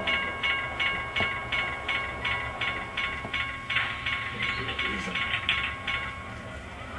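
Model railroad layout running, with a rhythmic clicking about three times a second over a steady tone; the clicking stops about six seconds in.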